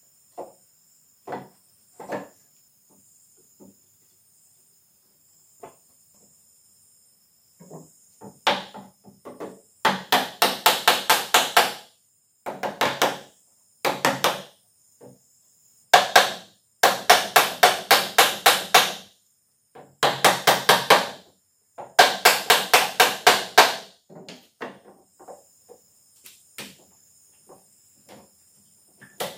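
Mallet driving a wooden rail into its dovetail sockets in the table legs: a few single knocks at first, then, from about a third of the way in, runs of quick blows, about four a second, each run lasting a second or two.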